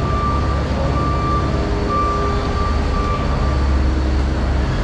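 Steady low machinery drone under a general din, with a thin high whine that breaks off and returns every second or so.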